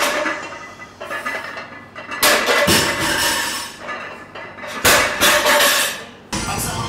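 A loaded deadlift barbell with iron plates clanking and rattling as it is pulled from the floor, then a loud crash as it is set back down a little before 5 s.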